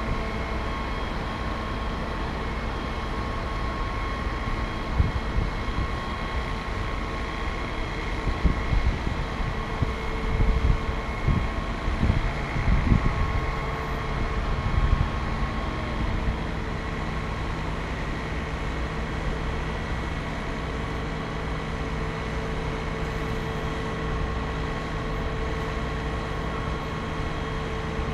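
Aerial ladder truck's engine and hydraulic system running steadily as the ladder is operated, a continuous mechanical drone with a few steady tones. Wind buffets the microphone for several seconds in the middle.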